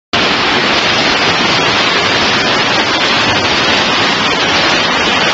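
Floodwater rushing across a flooded subway station's floor and platform, a loud steady wash of noise.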